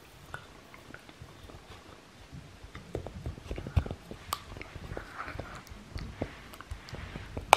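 Shiba Inu gnawing on a wooden kamaboko board: irregular clicks and crunches of teeth on wood, sparse at first and busier from about three seconds in, with one sharp knock near the end.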